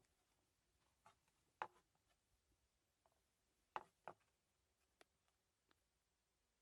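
A handful of short, sharp clicks and taps over near silence. The loudest comes about a second and a half in, and a close pair follows near the middle.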